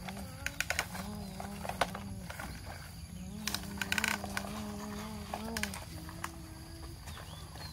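A child's voice making long wavering engine hums, a mouth imitation of a truck engine, as plastic toy trucks are pushed through loose dirt. There are short scraping sounds from the toys, loudest a little past halfway.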